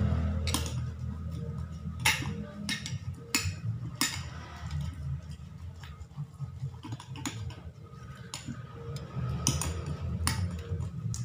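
Metal spoon stirring thick slime in a ceramic bowl, clinking against the bowl a dozen or so times at irregular intervals, with quieter scraping between the clinks.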